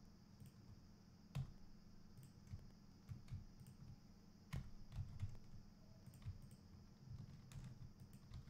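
Faint, scattered clicks of a computer mouse and keyboard keys, irregular and a second or so apart, over a low steady hum.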